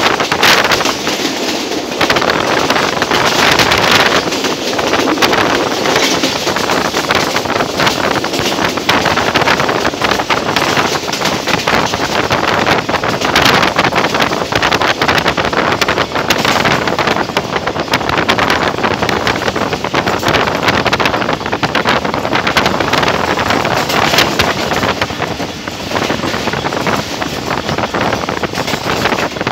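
Passenger train running at speed, heard from an open doorway: steady rumble and rattle of the wheels on the rails, with many short sharp clacks and heavy wind buffeting on the microphone.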